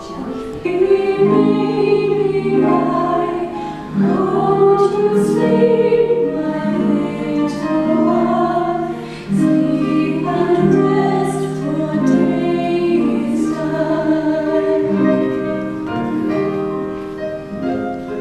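Music with a group of voices singing over held instrumental notes.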